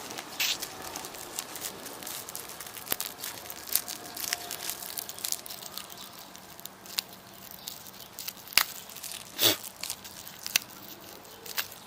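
Plastic packaging of small fishing lures being pulled and torn open by hand: irregular crinkling and crackling, with a couple of sharper snaps about eight and a half and nine and a half seconds in.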